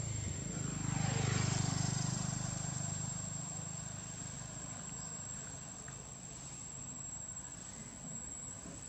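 A vehicle passing along the road: its engine hum swells about a second in, then fades away over the next few seconds. Under it, insects whine steadily at a high pitch.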